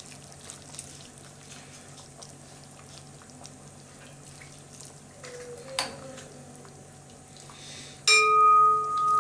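Broth ladled into a cooking pot, with faint pouring and dripping and a light clink a little before six seconds in. Near the end, a sharp metallic clang of kitchenware that keeps ringing as a clear, steady tone.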